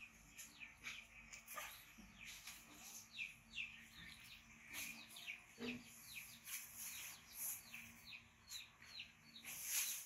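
Faint bird chirping: a string of short, quickly falling chirps, about two a second. A brief louder rustling noise comes near the end.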